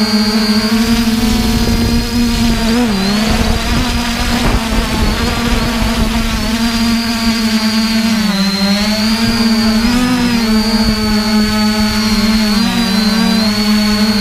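Drone's motors and propellers buzzing, heard from its onboard camera: a steady, loud, pitched buzz that starts wavering up and down about halfway through as the throttle changes while it manoeuvres.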